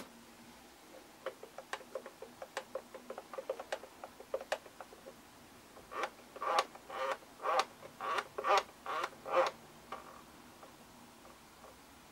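Control sticks of a Futaba T14SG radio transmitter being worked through their travel for calibration, making clicking and ticking. First comes a run of small, quick ticks, then about eight louder clicks, roughly two a second.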